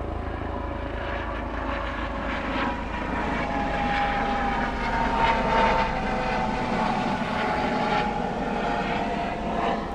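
Helicopter flying overhead: a steady drone of engine and rotor, swelling a little in the middle as it passes.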